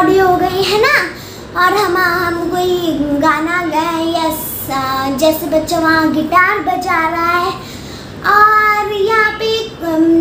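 A young girl singing alone, in held melodic phrases with short breaks between them, about a second in and again near eight seconds.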